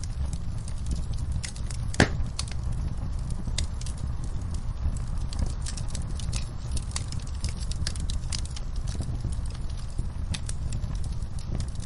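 Fire in a fireplace crackling, with frequent small sharp pops over a low steady rumble. One louder pop comes about two seconds in.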